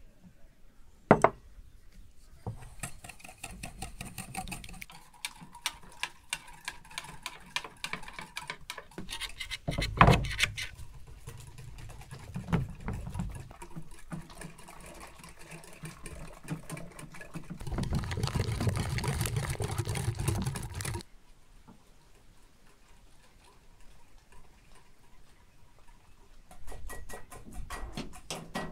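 A wire whisk beating eggs in a ceramic bowl: a fast, steady clatter, broken by a couple of sharp knocks. Near the end, a toaster oven's clockwork timer ticks quickly as it is wound.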